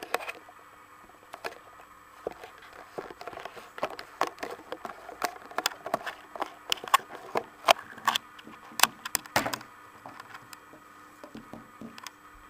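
Handling noise from the camera being taken off its mount: an irregular run of clicks, knocks and rubbing, loudest and busiest from about four to ten seconds in.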